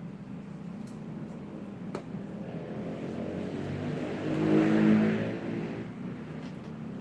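A motor vehicle passing by, its engine sound swelling to a peak about five seconds in and then fading away.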